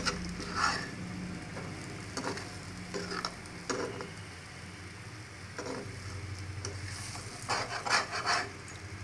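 A spatula scraping and stirring diced yam pieces in a shallow frying pan, over a low sizzle of frying. The strokes come irregularly, with a busier run of scrapes near the end.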